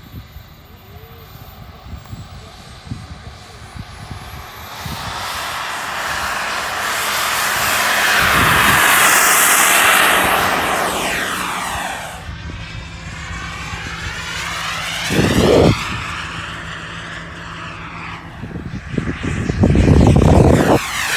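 Turbine engine of a radio-controlled T-45 Goshawk model jet at take-off power, a hissing whine that builds through the take-off roll, is loudest about ten seconds in as the jet passes, then fades with a sweeping whoosh as it climbs away. Two loud low rushes of noise come near the end.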